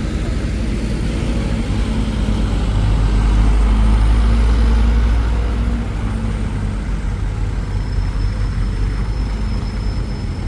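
Heavy diesel engine running steadily, swelling louder for a few seconds near the middle.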